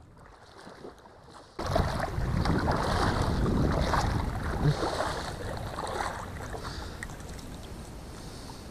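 Water sloshing and splashing as a person wades through shallow lake water. It starts suddenly about a second and a half in, is loudest over the next few seconds, and eases off near the end.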